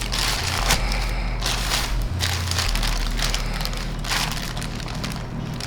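Crinkling and crushing of packaging, in repeated rustling spells, over background music with a low stepping bass line.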